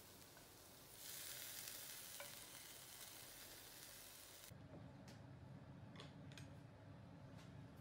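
Faint sizzle and stirring from a hot frying pan as teriyaki-glazed beef and onions are scooped out of it; the hiss grows louder about a second in and cuts off suddenly after about four and a half seconds. After that there is only a low hum with a few light clicks.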